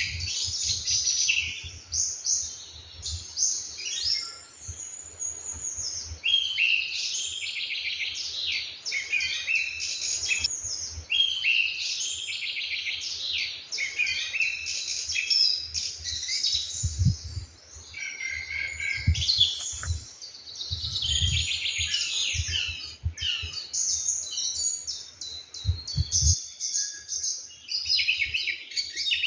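Morning chorus of several songbirds singing and chirping at once, a dense overlapping run of high trills and chirps that never pauses, with occasional low thuds underneath.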